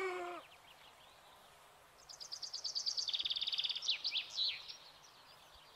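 A songbird sings one phrase: a fast run of high repeated notes, then a lower rapid trill, ending in a few quick downward-swept notes.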